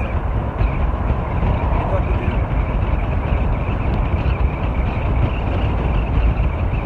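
Steady wind rushing over the microphone of a road bike ridden fast in a group, with the rumble of tyres on the asphalt.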